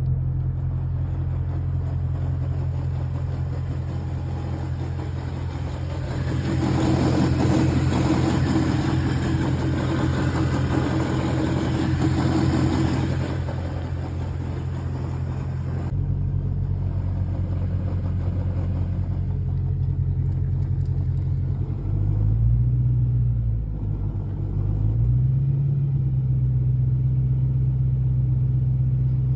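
BMW E92 M3's 4.0-litre V8 idling at about 600 rpm, with a weird extra noise over the idle for several seconds in the first half; the noise goes away when the revs are slightly higher. Later the engine speed rises briefly twice.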